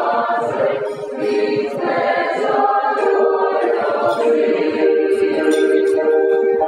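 Mixed choir of men's and women's voices singing together in held, sustained notes.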